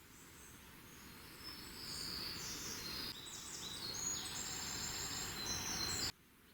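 Several insects chirring in overlapping, steady, high-pitched buzzes that build up after about a second, then cut off suddenly near the end.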